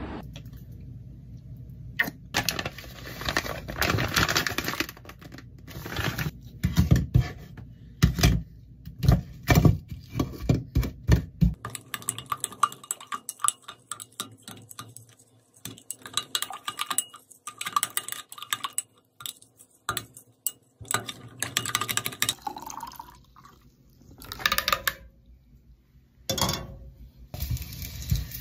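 Kitchen clatter: dishes and metal utensils clinking and knocking many times, with some liquid sounds, thickest in the first half.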